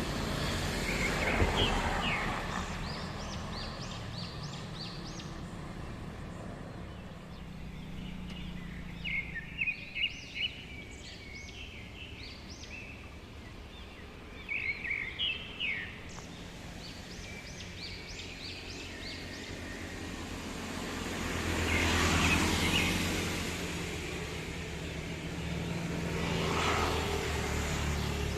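A flock of birds calling in quick bursts of short, high chirps, several times, over a steady low traffic hum. Passing vehicles swell up and fade twice in the second half, louder than the birds.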